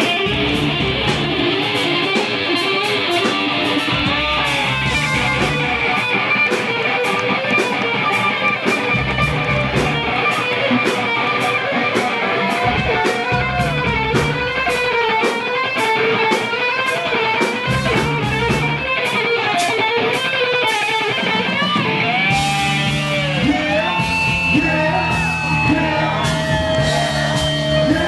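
Live funk band playing: an electric guitar riff over drums and bass, with a steady drum beat. About two-thirds of the way through, the bass line comes in heavier.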